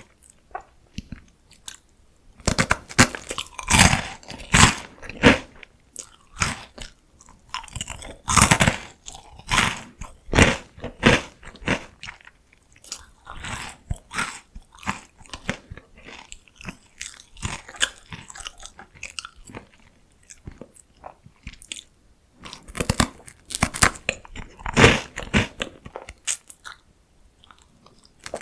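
Close-miked crunching and chewing of PoStick salty potato sticks: clusters of sharp, crackly bites and crunches with quieter chewing in between.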